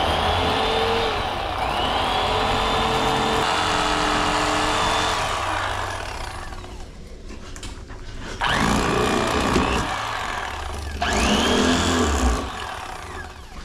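Corded electric fillet knife running in bursts while filleting fish: a motor buzz whose whine rises in pitch each time it starts up. One long run of about five seconds is followed by two shorter ones.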